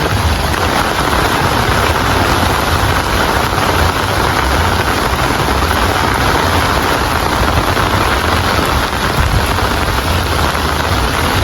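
Steady heavy rainfall, a dense even hiss with a low rumble underneath.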